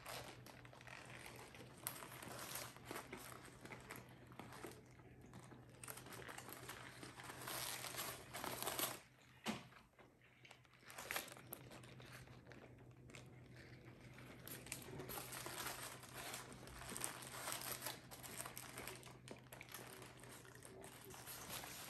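Faint crinkling and rustling of the burger's paper wrapping as it is handled during eating, with a steady low hum underneath.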